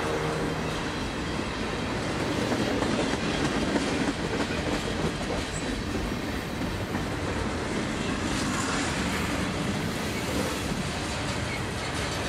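Boxcars of a Union Pacific freight train rolling past close by: a steady rumble and clatter of steel wheels on the rails.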